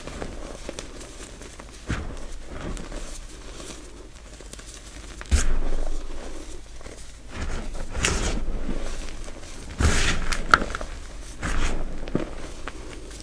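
Hands squeezing and pressing into a heap of crushed, powdery gym chalk: soft, dusty crunching and squishing, with a few sudden louder crunches spaced a second or two apart.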